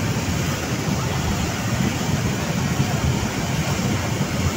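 Muddy floodwater in a swollen river rushing past, carrying debris: a steady, loud rush of churning water.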